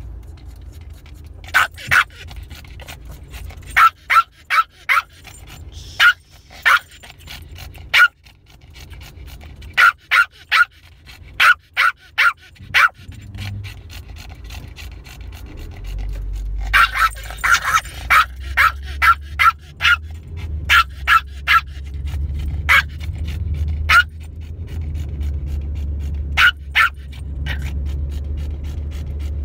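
A dog barking and yapping in short sharp calls, two to five at a time, again and again. Under it a low car rumble gets louder about halfway through.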